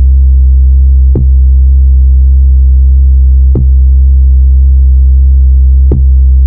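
Electronic bass-test music: one very loud, deep synth bass note held steadily, restarted about every two and a half seconds with a short click at each restart.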